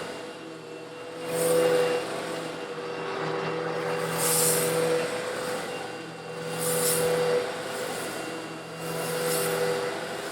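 Eureka vacuum cleaner running with a steady motor hum while sucking up small coarse stone granules, the grit coming through in surges of hiss about every two to three seconds.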